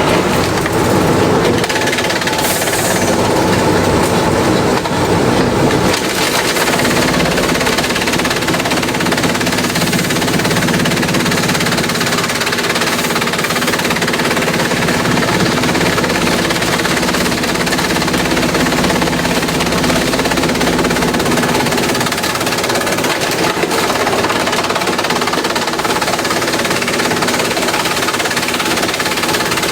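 Industrial bamboo shredder running and shredding bamboo: a loud, steady noise over a constant machine hum.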